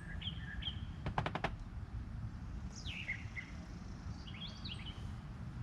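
Songbirds chirping in short calls, some sliding down in pitch, over a low steady rumble. A quick run of about six sharp clicks comes about a second in.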